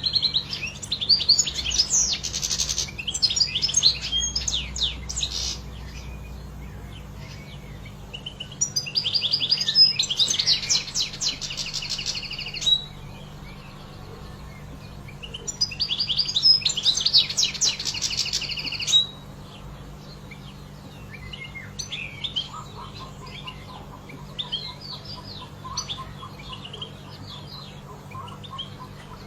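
European goldfinch singing: three long bursts of fast, liquid twittering song, each several seconds long, then softer scattered chirps and call notes in the last third.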